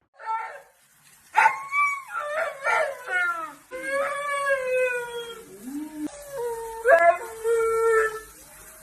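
A dog howling and whining in a string of wavering, drawn-out calls, some held for over a second and falling in pitch, after a short opening yelp.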